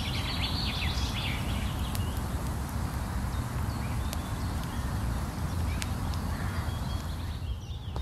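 Woodland ambience: birds chirping in roughly the first second, over a steady low rumble, with a few scattered sharp clicks.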